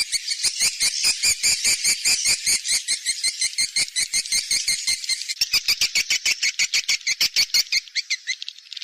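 Swiftlet call recording: a rapid stream of sharp, twittering chirps, several a second, pausing briefly near the end. It is a lure call played to draw swiftlets into a swiftlet house.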